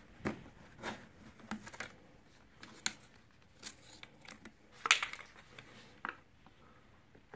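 Handling noises from working the vacuum fuel tap and its hose on a scooter's plastic fuel tank: irregular clicks, taps and rustles, loudest in a short cluster about five seconds in. A screwdriver goes onto the tap's clamp near the end.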